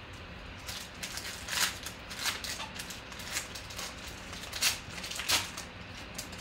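Foil wrapper of a Panini Contenders football card pack being torn open and crinkled by hand, in an irregular run of crackling bursts, loudest near the end as the cards are pulled free.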